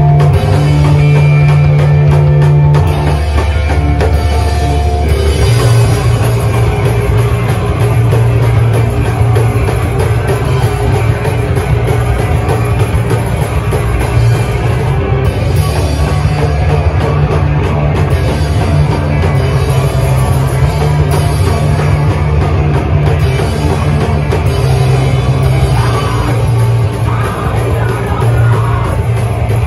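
A live rock band playing loud: drum kit, electric bass and guitars, with heavy low bass notes that shift about three and five seconds in. It is heard from within the crowd at a small gig.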